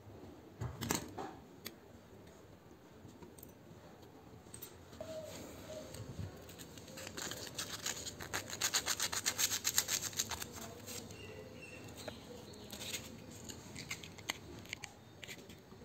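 Sandpaper rubbed quickly back and forth over a small rusty metal switch contact, scraping off the rust in rapid even strokes that are loudest in the middle stretch. A few sharp clicks near the start as the small switch parts are handled.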